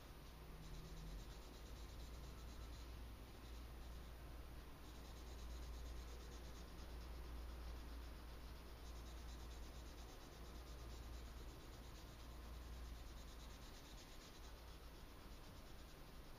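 Pencil scratching faintly on sketch paper in fast, repeated drawing strokes that come in stretches with short pauses, over a steady low hum.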